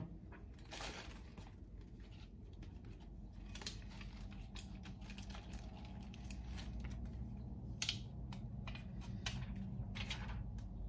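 Light, irregular clicks and rustles of a sandwich being put together by hand, bread and ham being handled at a kitchen counter, over a low steady hum.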